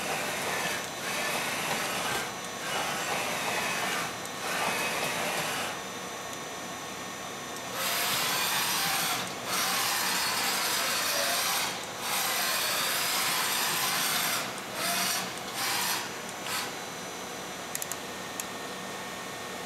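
2004 Makino S56 CNC vertical machining center working under power: stop-start bursts of hissing, scraping machine noise, several lasting one to three seconds and a few short ones near the end, with a faint whine that rises and falls in pitch.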